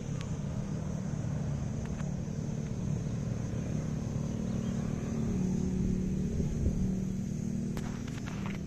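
A steady low rumble, with a few soft clicks about eight seconds in as a cat licks its paw.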